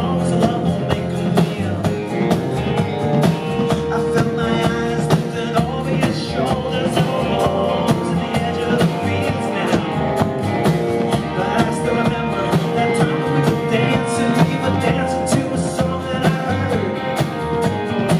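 Live band music: a strummed acoustic guitar with electric guitar and upright bass, and a man singing.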